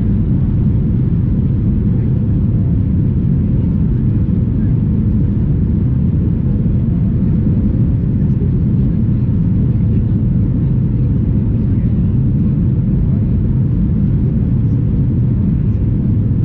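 Steady, loud low rumble of jet engines and rushing air inside the cabin of a Ryanair Boeing 737 climbing after takeoff.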